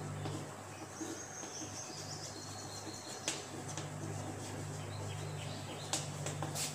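Chalk writing on a chalkboard: light scratching strokes with a few sharp taps, the loudest near the end, over a low steady hum.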